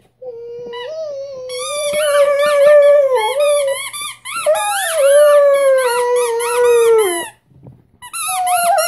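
A Rhodesian Ridgeback puppy howling: one long howl of about seven seconds that wavers in pitch, then a second howl starting near the end.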